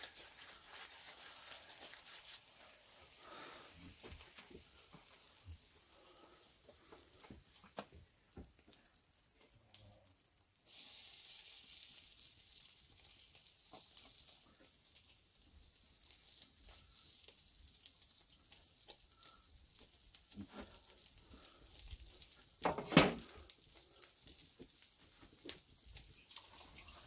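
Fish sizzling on an oiled wire grill over hot charcoal, a steady hiss with small crackles throughout, and one brief louder sound near the end.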